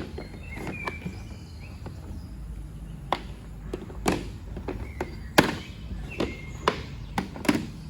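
Trays being lifted out of a toolbox and handled: a series of separate sharp knocks and clicks, about seven of them, the loudest a little past halfway.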